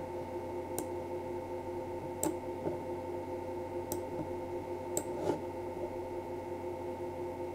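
Four sharp computer mouse clicks about a second or so apart, over a steady low hum.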